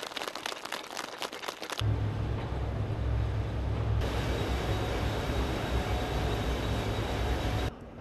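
Heavy steel-works machinery: a rapid metallic clatter of many clicks for the first couple of seconds, then a heavy low rumble with a broad hiss. The sound changes abruptly about four seconds in and drops to a quieter hum near the end.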